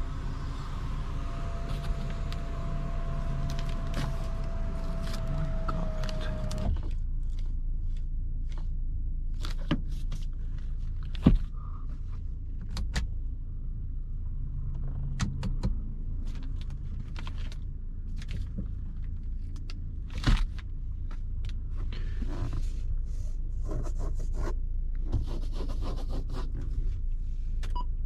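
Electric panoramic sunroof motor of a Jetour X70 running for about six and a half seconds with a steady whine that drops slightly in pitch, then stopping abruptly. After that there is the car's low cabin rumble with scattered clicks and a couple of sharper knocks.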